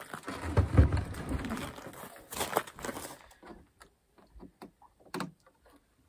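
A heavy wheeled portable power station being turned around on a pickup truck's bed liner. There is a low scraping rumble for the first few seconds, then a few light knocks and clicks as it is handled.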